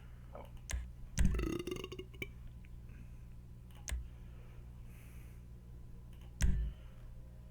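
A few sharp clicks, likely button or mouse presses, spaced irregularly over a steady low hum. About a second in, one click is followed by a short throaty vocal sound like a burp.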